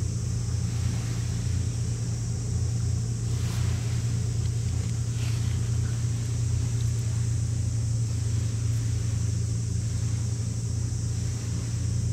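Steady low rumble of ship engines from vessels under way on the water.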